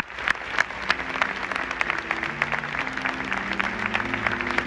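Audience applauding with many sharp individual claps. About a second in, an instrument joins with low held chords that change step by step.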